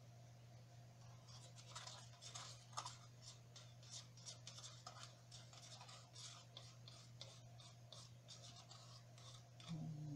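Faint, quick scratching and tapping of plastic as gloved hands handle a plastic colander and paint cups, several small scrapes a second, over a low steady hum.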